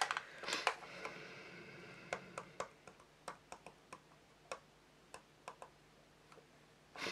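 Small, irregular clicks and taps of fingers and fingernails on hard plastic model parts while masking tape is pressed on and adjusted, after a soft rustle of handling in the first second.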